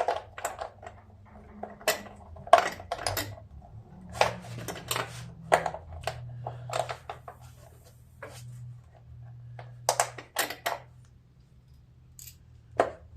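Irregular metallic clinks, taps and knocks as an engine shroud and its bolts are worked into line on a riding lawn mower, over a faint steady low hum.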